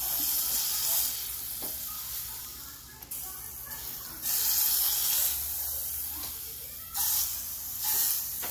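Butter sizzling as it melts in a hot nonstick frying pan, the sizzle swelling and fading every second or two.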